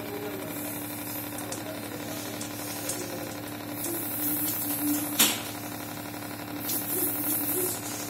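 Reverse-osmosis water purifier's booster pump running with a steady hum and buzz. The presenter puts the noise down to vibration from the loose pipe leaving the pump. One sharp click a little after five seconds in.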